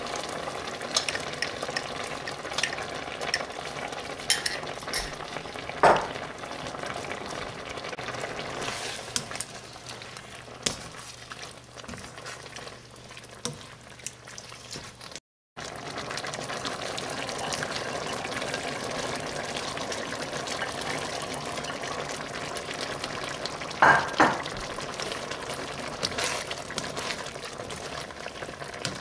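Beef in red curry sauce sizzling and bubbling in a wok while a spatula stirs and scrapes through it, with scattered clicks and a couple of sharp clacks of the spatula on the pan. The sound drops out for a moment about halfway through.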